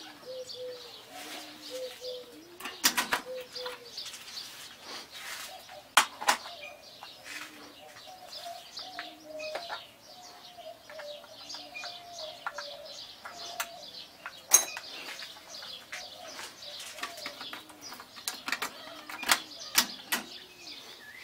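Mechanical clicks and clunks from a Pioneer CT-F900 cassette deck's transport and eject mechanism as a tape is taken out and another cassette loaded, the loudest about six seconds in and about halfway through. Birds coo over and over and chirp in the background.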